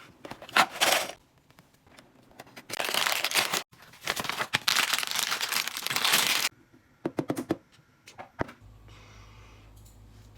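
Packaging of a Lego set being handled and opened: crinkling and tearing in three long bursts, then a quick run of sharp clicks. A faint low steady hum comes in near the end.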